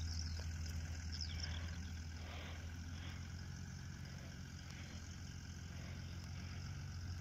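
Distant farm tractor engine running with a steady low hum as it pulls a fertilizer spreader across the field. A few high bird chirps about a second in.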